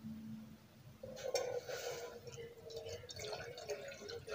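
Milk being poured from a bowl into an empty metal saucepan, a splashing, trickling pour that starts about a second in.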